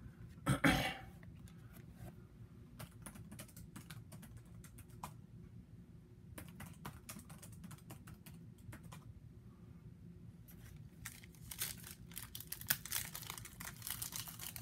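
Light clicks and taps of trading cards being handled, then near the end a card pack wrapper crinkling and tearing open.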